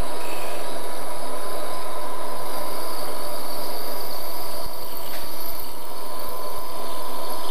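Wood lathe running while a 4.2 mm twist drill in the tailstock chuck bores the tap-drill hole for M5 threads into a spinning steel rod. It gives a steady machine whine with a constant high tone, easing slightly about two-thirds of the way through.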